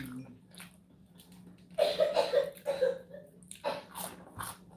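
A person eating. About two seconds in she makes a short voiced mouth sound while chewing, and near the end there are a few sharp clicks of chewing.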